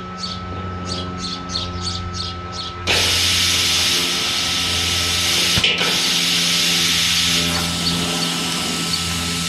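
Plasma cutter torch trigger pulled: for about three seconds the torch gives short hissing pulses, about three a second. Then compressed air suddenly rushes out in a loud, steady hiss, over a steady motor hum. The air blows but the torch is barely cutting, which the owner puts down to a poor ground.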